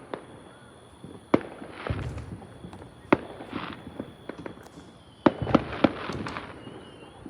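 Fireworks going off: single sharp bangs spaced a couple of seconds apart, then three bangs in quick succession about five seconds in, with low rumbling booms between them.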